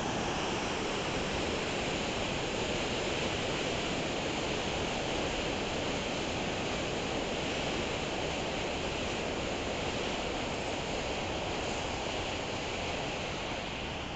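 Steady rushing of a waterfall in the canyon below, easing off slightly near the end.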